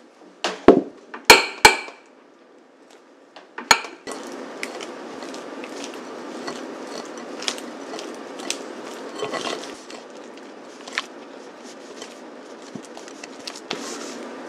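Several sharp knocks against a glass mixing bowl in the first four seconds. From about four seconds in, steady scraping with small clicks as a silicone spatula works softened cream cheese around the glass bowl.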